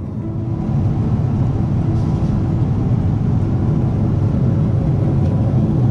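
Steady low rumble of a Boeing 777-300ER in flight, heard from inside the cabin. The engine and airflow noise gets louder about a second in.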